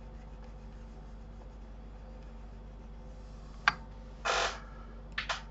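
Quiet room tone with a steady low hum. A sharp click comes about three and a half seconds in, then a brief noisy rush about half a second long, and two quick clicks close together near the end: a computer mouse and desk handling noises.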